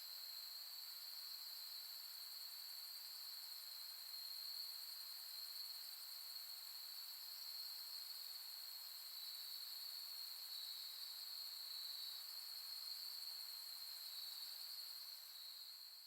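Night chorus of autumn insects calling together in steady, unbroken trills at several high pitches, over a faint hiss; it begins to fade out right at the end.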